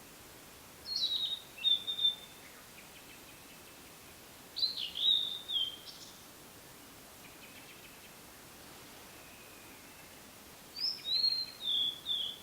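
Blue-and-white flycatcher singing: three separate whistled song phrases, each about a second long and falling in pitch, with pauses of several seconds between them.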